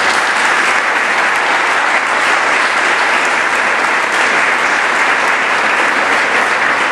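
Steady applause: many people clapping their hands in a hall.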